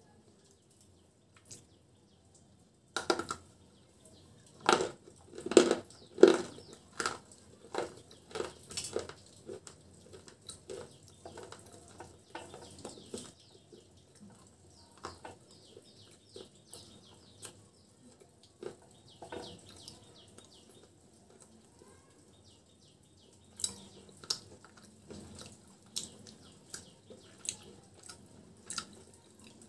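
Fingertips scraping and crumbling white powdery clay off the top of a small terracotta pot close to a clip-on microphone. There are sharp crackles and scratches in the first third, softer scratchy rustling in the middle, and another run of crackles near the end.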